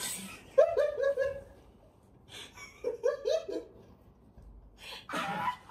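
High-pitched laughter in two bursts of short, falling 'ha-ha' syllables, the first about a second in and the second a couple of seconds later.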